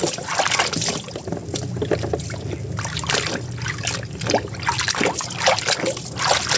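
Water splashing and dripping irregularly as a muddy toy excavator is washed by hand in a basin of clean water.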